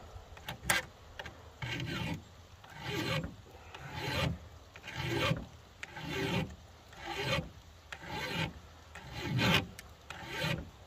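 Chainsaw file scraping across the cutters of a saw chain in steady strokes about one a second while the chain is sharpened by hand, with a sharp click just under a second in.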